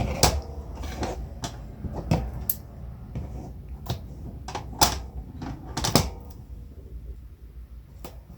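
Hands handling cardstock and double-sided tape on a tabletop: irregular clicks, taps and rustles, with the sharpest knocks just after the start and around five and six seconds in.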